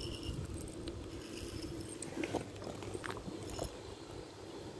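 Cats crunching dry kibble, a few faint scattered crunches over a steady low background hum.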